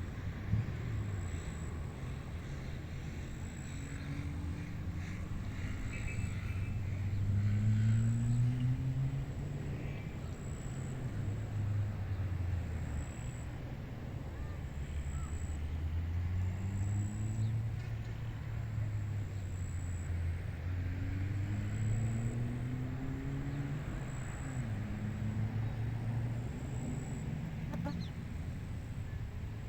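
Outdoor field ambience: a low engine hum from a distant motor vehicle that slowly rises and falls in pitch, over a steady wash of wind. A faint high chirp repeats about every second and a half.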